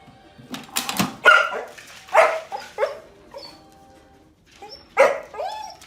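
A dog barking several times in short sharp barks, then a pause of about a second, then another bark followed by a higher arching yelp near the end.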